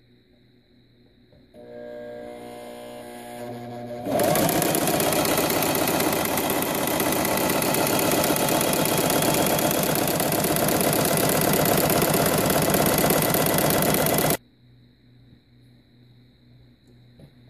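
Singer Traditional 2277 electric sewing machine running. A quieter hum starts about two seconds in, then the machine runs loud and steady at speed from about four seconds, and stops abruptly some ten seconds later.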